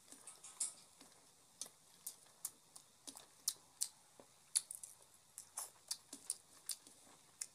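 Eating rice by hand from a steel plate: faint, irregular clicks and smacks, a few each second, from fingers working wet rice against the plate and from chewing.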